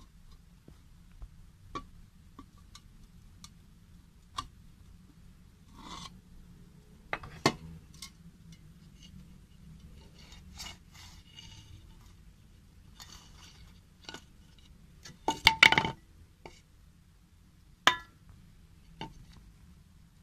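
Scattered clinks, taps and scrapes of metal cans and a wooden board being handled, with a quick cluster of louder knocks about three-quarters of the way through.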